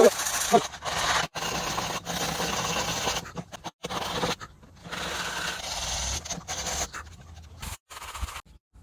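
A small power tool running against wood in a run of short clips that start and stop abruptly, with a short honk right at the start.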